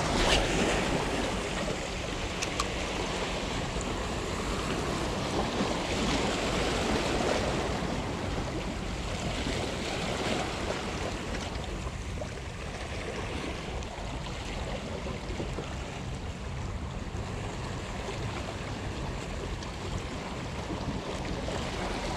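Small sea waves washing steadily over shoreline rocks.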